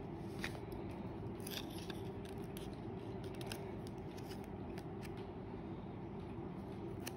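Faint scattered clicks and taps of hands handling a new iPhone XR and its box, over a steady low hum.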